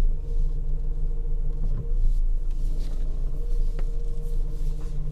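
Chery Elara's engine idling with its power-steering pump running: a steady low drone with a constant hum. The pump is still noisy even with fresh fluid. A single sharp click comes about four seconds in.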